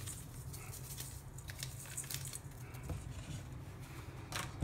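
Faint rustling and light ticks as a seasoning packet is shaken out over a stainless steel mixing bowl, over a steady low hum.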